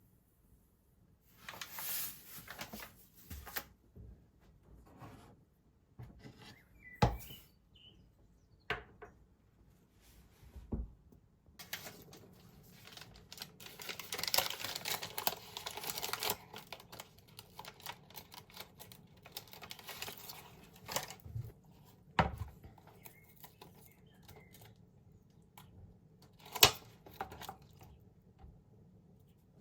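Kitchen work sounds while making a cake: scattered clicks and knocks of utensils and dishes, with a longer stretch of rustling and scraping in the middle.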